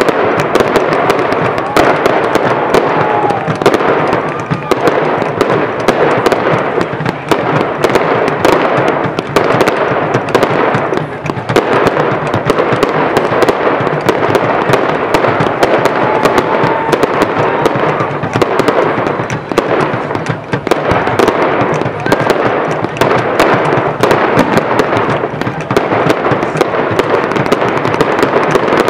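A fireworks display: a dense, unbroken barrage of aerial shells bursting and crackling, with many bangs in quick succession.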